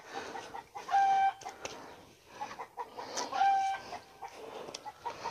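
A chicken calling in the background: two drawn-out, flat-pitched clucks, one about a second in and another about three and a half seconds in.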